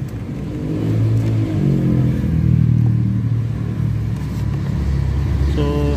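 Kia Picanto's engine running at idle, its pitch rising a little between one and two seconds in, then holding steady.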